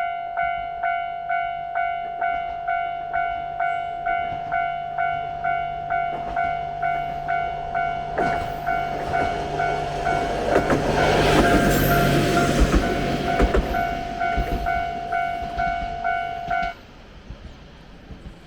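Japanese level-crossing bell ringing its "kan-kan" in a steady rhythm, about two strikes a second, while a single-car diesel railcar passes, loudest a little past the middle with wheels clicking over the rail joints. The bell stops abruptly near the end.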